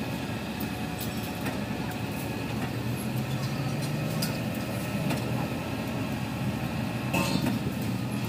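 Kato SR250SP rough-terrain crane's diesel engine running steadily, with a few sharp metallic clinks now and then.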